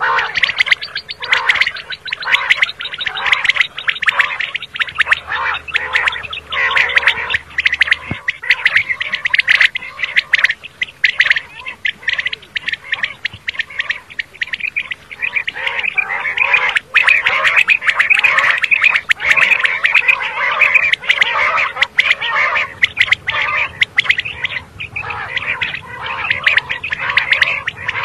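Common quail calling: a dense, unbroken run of rapid clicking, chattering calls.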